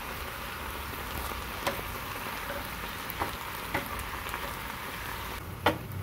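Sliced baby bella mushrooms and onions sizzling in a frying pan while being stirred with a wooden spatula, which knocks against the pan a few times, loudest near the end.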